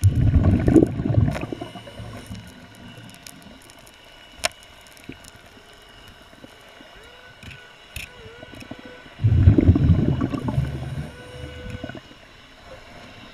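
A scuba diver's exhaled breath bubbling out of the regulator, heard underwater: two low bubbling rumbles of two to three seconds each, about nine seconds apart, with a sharp click about four seconds in.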